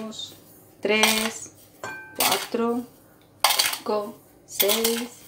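A metal tablespoon scooping sugar from a ceramic bowl and tipping it into a mixing bowl, about five short scrapes of spoon against bowl, roughly one a second, each ringing briefly with a steady tone.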